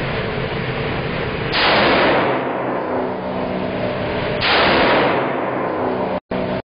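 Two gunshots about three seconds apart, each followed by a long ringing tail off the concrete walls of an indoor range.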